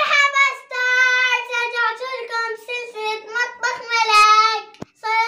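A young girl singing in a high voice, holding long notes and sliding between them.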